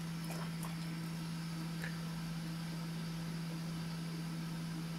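A steady low hum, with a few faint light clicks in the first two seconds.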